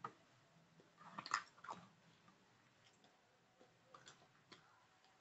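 Chewing gum close to the microphone: faint, wet mouth clicks and pops, with a cluster of louder snaps a little over a second in and a few more around four seconds.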